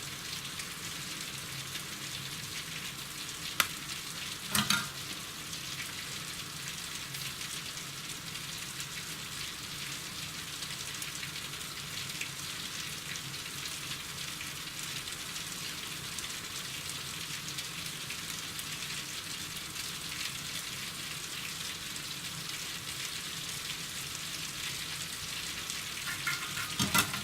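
Steady rain falling, an even hiss, with a sharp click about three and a half seconds in and a short knock a second later.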